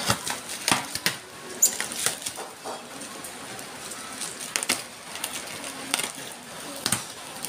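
Clear plastic packaging wrap crinkling and tearing as it is pulled off a cardboard box, an irregular run of sharp crackles and rustles.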